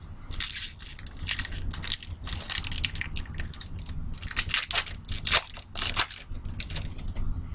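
A trading-card pack wrapper being torn open and crinkled by hand: a run of irregular crackles and rips that stops about a second before the end.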